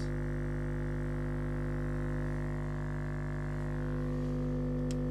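Steady single-frequency test tone played through a JL Audio 10W7 10-inch subwoofer powered by a JL Audio 500/1 amplifier. The pitch holds constant, with a stack of overtones above it.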